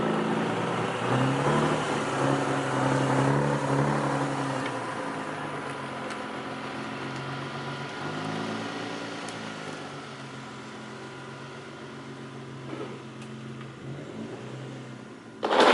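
A car engine running and revving, its pitch rising and falling twice, with a steady hiss of road noise that slowly fades; a short, loud noise near the end.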